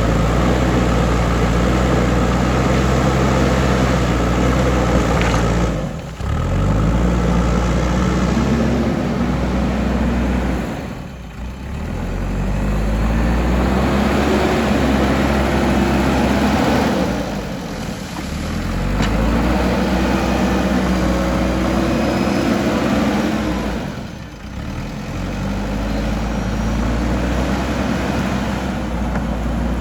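JCB backhoe loader's diesel engine working under load, its pitch dropping off briefly and then climbing back up four times, at about six, eleven, seventeen and twenty-four seconds in.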